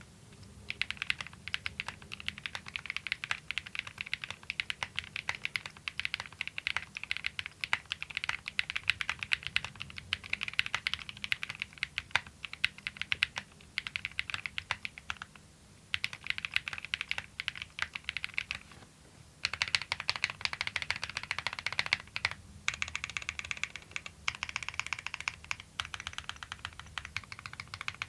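Haven65 mechanical keyboard with an aluminium plate, plate foam, PBT keycaps and London Fog switches being typed on quickly and continuously, a dense run of key clacks broken by a few brief pauses.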